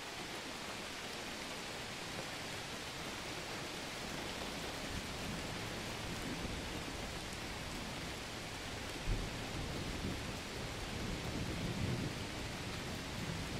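Mountain outdoor ambience: a steady rushing noise, with low, uneven rumbling that builds from about a third of the way in and a short low thud a little past the middle.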